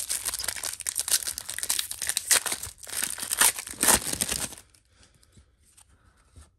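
Gold foil trading-card pack wrapper torn open and crinkled in the hands: a dense run of crackling and tearing that stops about four and a half seconds in.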